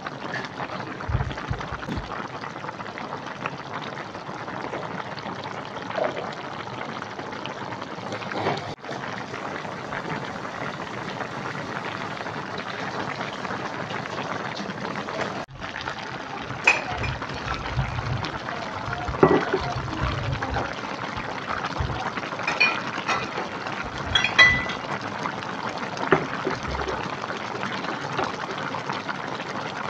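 Cassava-leaf and chicken soup boiling in an aluminium wok: a steady bubbling, with a few louder short pops in the second half.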